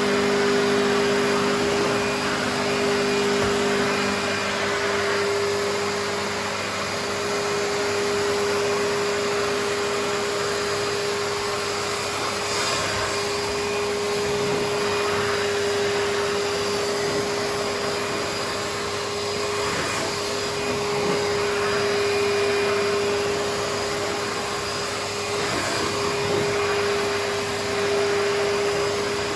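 Numatic George wet-and-dry vacuum cleaning carpet in its wet carpet-cleaning mode: the suction motor runs with a steady whine and a hiss of airflow, rising and falling slightly in loudness as the tool is worked over the carpet.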